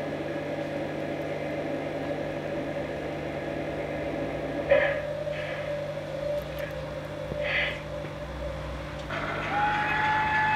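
Sound effects from a garden-scale model RhB electric locomotive: a steady electrical hum, two brief higher sounds around the middle, and a new steady higher tone that sets in near the end.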